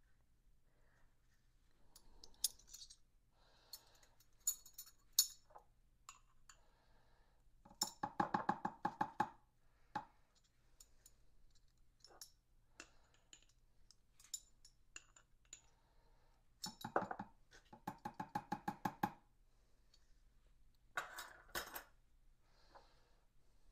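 Metal measuring spoons clinking and scraping against a small glass spice jar as ground spice is scooped and measured. Scattered single clinks, with two quick runs of rapid ticking taps, one about eight seconds in and one about seventeen seconds in.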